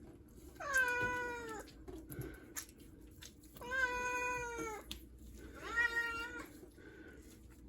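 Tomcat meowing three times in protest while being wrung out after a bath: long meows about a second each, a couple of seconds apart, each rising at the start and then held.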